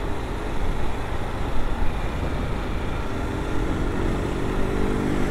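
Riding noise from a Honda Fan 160 motorcycle: wind and road noise over the helmet microphone with the engine running. About three seconds in, a steady pitched hum joins for roughly two seconds.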